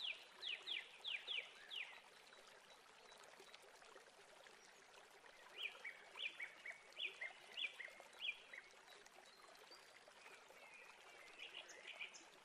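Faint bird chirping: a quick run of short falling high notes, then a phrase of alternating high notes a few seconds later, and a few more near the end.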